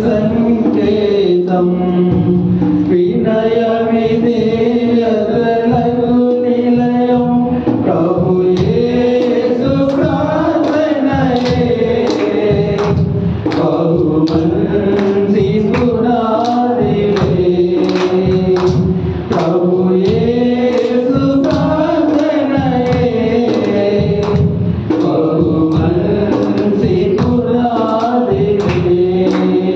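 A man singing a Telugu Christian devotional song into a microphone, long held notes sliding up and down. A regular beat joins in about eight seconds in.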